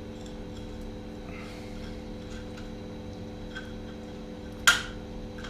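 Steady electrical or mechanical hum of several fixed tones, with a few faint light ticks and one sharp click near the end.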